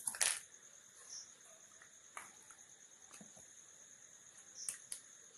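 Steady high chirping of crickets in the background, with a few soft clicks and rustles of a small jewellery box being handled. The loudest rustle comes right at the start, and there are two quick clicks near the end.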